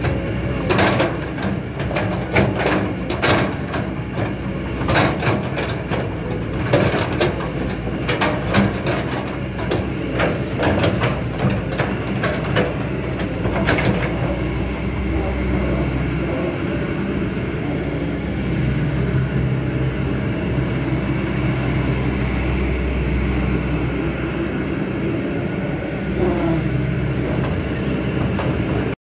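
Kobelco SK200-8 hydraulic excavator's diesel engine running under hydraulic load as the boom, arm and bucket are worked and the upper body swings. For roughly the first half there is a string of sharp knocks and clanks; in the second half the engine note is steadier and rises for a few seconds in the middle.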